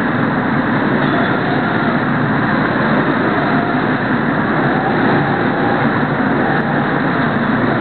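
Go-kart engines running at racing speed, heard from a camera riding on a kart: a loud, steady drone with no let-up.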